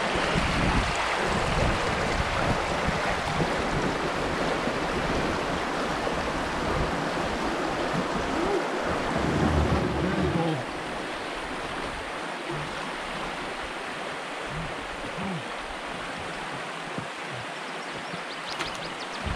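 Rushing water of a river running fast in high water, a steady dense hiss, with wind buffeting the microphone in the first half. The whole sound drops noticeably in level a little past halfway.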